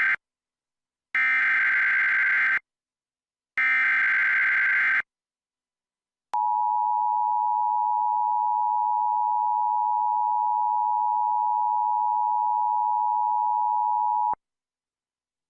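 Emergency Alert System tones. First comes the tail of one SAME header data burst, then two more full bursts of about a second and a half each, a second apart. After a short pause the steady two-tone EAS attention signal sounds for about eight seconds and cuts off sharply. The tones announce a National Weather Service tornado warning.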